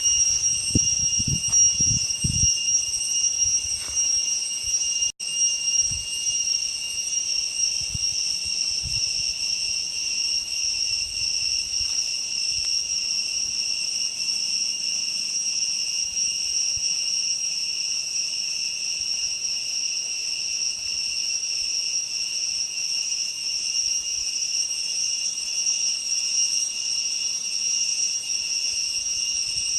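Cicadas singing: a loud, steady, shrill whine of several high tones held without a break, with a momentary dropout about five seconds in.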